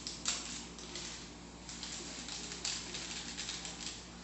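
A small foil seasoning sachet crinkling as it is torn open and shaken out, with a sharp rip about a quarter of a second in, over a steady low hum.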